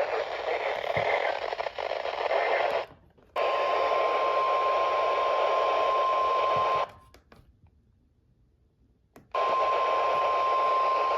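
Weather-radio static hiss. About three seconds in, a steady single-pitch alert tone, the NOAA Weather Radio 1050 Hz warning alarm tone, starts over the static. The audio cuts out for a couple of seconds, then the static and the tone come back near the end.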